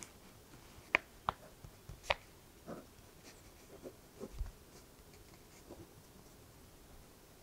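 Pen writing on paper in a notebook: a handful of faint, short scratches and ticks, mostly in the first half.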